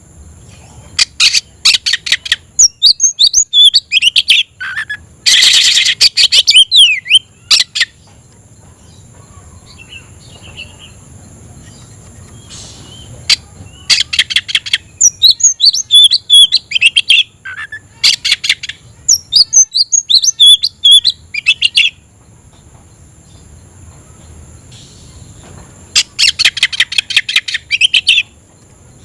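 Oriental magpie-robin (kacer) in full challenging song: loud bouts of rapid, sharp whistled notes and trills, three bouts with pauses between them.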